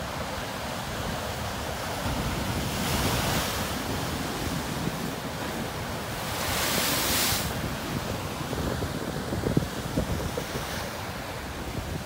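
Atlantic Ocean surf breaking and washing over rock ledges, with two bigger crashes of spray about three and seven seconds in. Wind rumbles on the microphone, and a couple of short thumps come about nine and a half seconds in.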